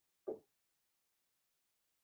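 Near silence on the gated audio line, broken by one short, muffled sound about a quarter second in.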